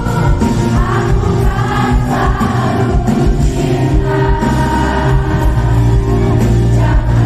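Live concert music played loud: a band with a heavy bass line and singing voices over it.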